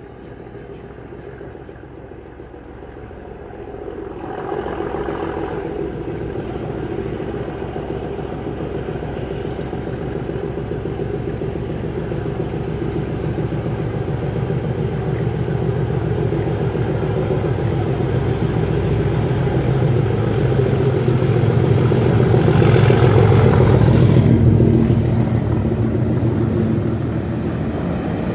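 English Electric diesel locomotive approaching and passing close by with its engine running hard, growing steadily louder and loudest about 23 seconds in as it passes beneath. After that the engine note eases and the coaches roll past.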